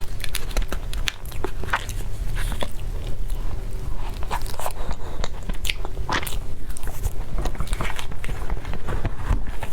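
A person eating: biting and chewing with many irregular crunchy, wet clicks.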